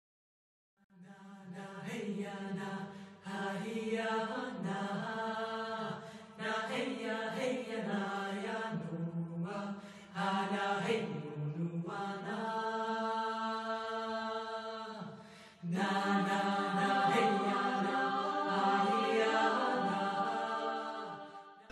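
Background music with long held, voice-like notes, several parts at once, in phrases of two to four seconds separated by short breaks. It starts after about a second of silence.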